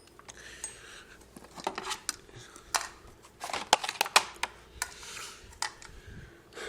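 Hard plastic parts of an upright vacuum cleaner clicking and clattering as the housing is unscrewed and taken apart by hand: irregular sharp clicks and knocks, busiest in the middle.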